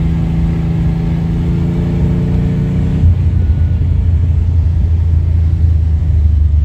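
Ferrari 246 GTS Dino's 2.4-litre V6 running as the car drives, heard from the cockpit. The engine note is steady, then drops sharply to a lower pitch about three seconds in.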